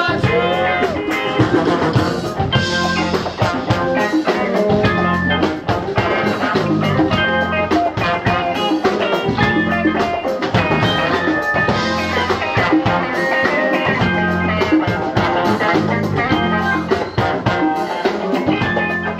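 Live band playing an upbeat number with electric guitars, bass, a drum kit and trombone, driven by a steady beat.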